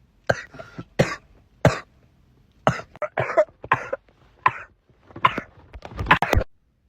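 A person coughing over and over, a dozen or so coughs, some in quick doubles, cutting off sharply near the end.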